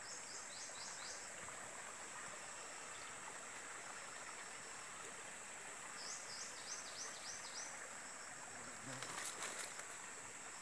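Forest ambience: a steady high insect drone, with two short runs of quick, high chirping notes, one right at the start and one about six seconds in. A few faint clicks and rustles come about nine seconds in.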